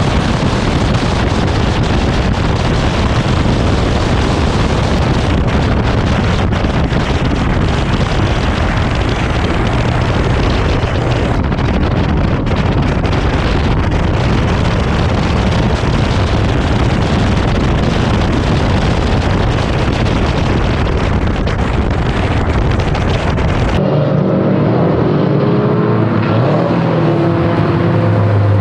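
A car at speed, engine and heavy wind noise on the microphone making a loud, steady rush. About 24 seconds in it changes abruptly to a car engine running with a clear, steady pitch.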